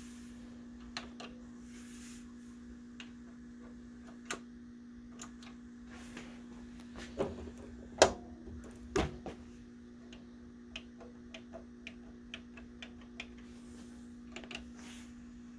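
Kenwood KD-74F turntable being handled: scattered light clicks and ticks, with a few louder knocks about seven to nine seconds in, over a steady low hum.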